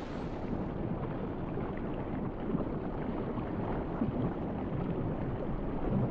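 Low, muffled rumble of moving water. The higher hiss of surf drops away about a second in, leaving only the deep rumble.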